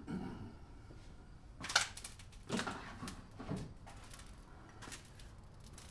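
Light handling noises: one sharp click about two seconds in, then two duller knocks about a second apart.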